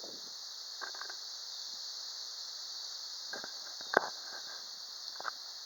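Steady high-pitched insect drone with a few short, faint chirps or clicks over it; the sharpest click comes about four seconds in.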